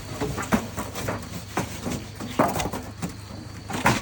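Cardboard packaging of a refrigerator being torn and pulled off by hand, in irregular ripping and crunching strokes about once every half second to a second.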